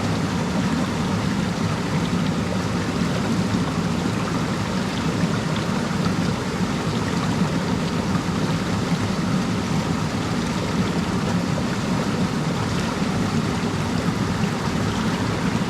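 Waterfall: water falling and rushing steadily, a constant deep rumble with a spray hiss over it.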